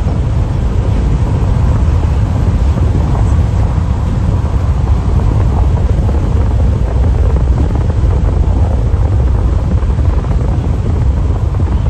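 Car driving at motorway speed, heard from inside: a loud, steady low rumble of tyres and wind.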